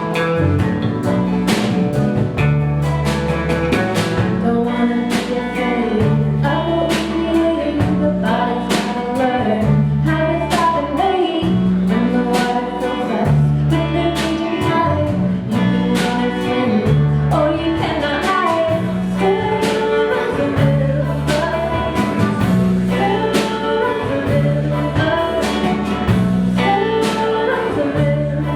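Live folk band playing: clawhammer banjo, guitar, bass and drum kit, with a steady bass line and regular drum beats under a wandering melody.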